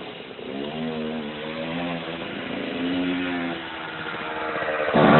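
Kawasaki two-stroke engine running with the throttle blipped: the revs rise and fall twice, then climb sharply and louder near the end.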